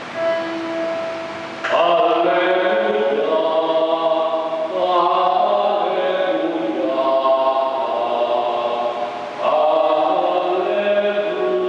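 A man's voice chanting a liturgical melody into a microphone and heard over the church's sound system, in two long flowing phrases with a short break about nine and a half seconds in. A held note sounds just before the chant begins, about two seconds in.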